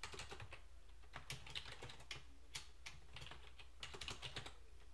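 Typing on a computer keyboard: a quick, irregular run of keystrokes, over a faint steady low hum.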